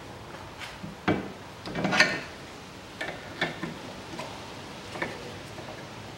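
Irregular metal knocks and clinks from front suspension parts being handled and turned by hand, about seven in all, the loudest about two seconds in.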